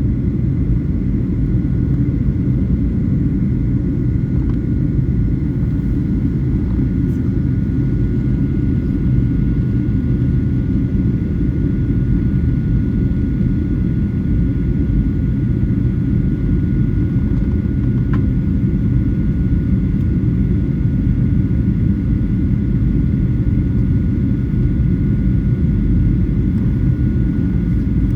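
Steady in-flight cabin noise of a Boeing 737-900 during descent: a deep, even rumble of airflow and engines, with two faint steady whining tones above it.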